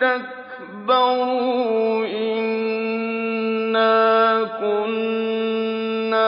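A male reciter chants the Quran in melodic tajweed. He starts a new phrase about a second in and draws it out in long, steady held notes.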